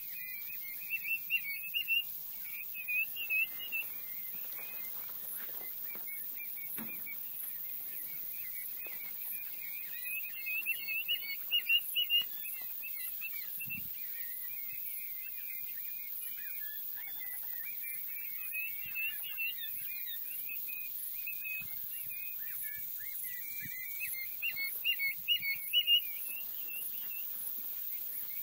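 Many young quail peeping and chirping all at once in a steady high chatter. Louder bunches of calls come through several times: about a second in, around ten to twelve seconds in, and again near the end.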